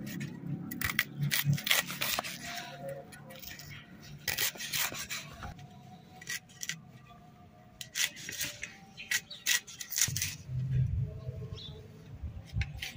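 A knife slicing through fresh mustard green stems held in the hand: an irregular run of short, sharp cuts, with the chopped pieces dropping onto a cloth.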